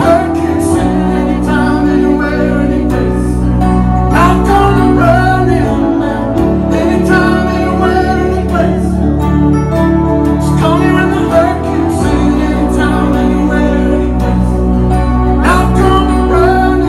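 Live band rock song: a male lead singer sings phrases over acoustic guitar and a steady bass line, with keyboards in the band.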